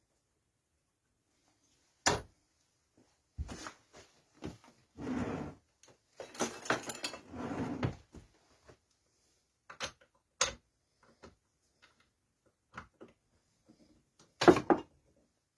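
Scattered knocks, clicks and clatter of objects being handled and set down on a workbench, with a rattling, scraping stretch in the middle and a loud knock near the end.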